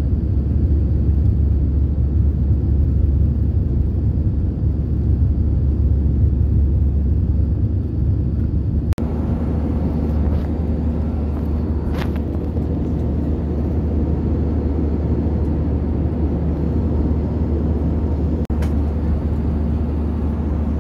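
Airbus A320 cabin noise in flight, heard from a window seat over the wing: a steady, deep jet-engine and airflow rumble. It cuts out briefly about nine seconds in and again near the end, and after the first break a faint steady hum joins it.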